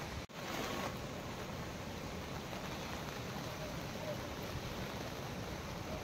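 Steady rushing of a waterfall in full flood, swollen with muddy monsoon rainwater tumbling over rocks. The noise drops out for an instant near the start, then carries on unchanged.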